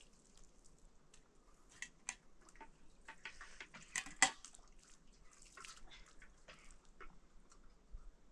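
Light clinks and taps of dishes and utensils during a meal, scattered and irregular, with the loudest pair of clinks about four seconds in.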